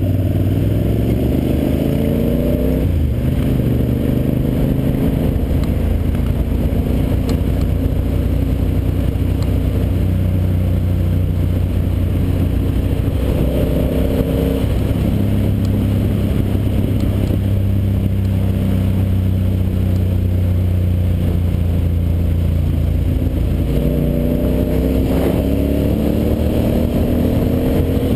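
Ducati Monster 800's air-cooled L-twin engine running while riding in traffic. It rises in pitch as the bike accelerates near the start, around the middle and near the end, with a sudden drop in pitch at each gear change, and holds steady cruising revs in between.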